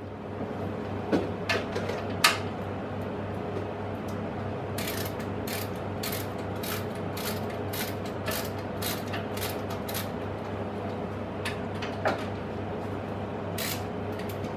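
Sharp metal clicks and clanks of a steel billet being seated in machine vises and the vises tightened with a spanner, most of them in a quick run through the middle of the stretch. A steady low hum runs underneath.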